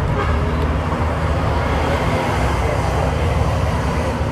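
Steady road traffic noise: a low engine rumble with a rushing hiss, holding at an even level throughout.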